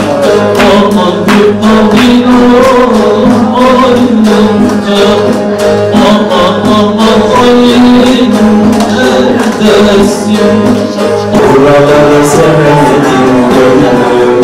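A man singing a Turkish folk song live to his own bağlama (long-necked saz), the strings strummed and plucked. The music changes abruptly about eleven seconds in.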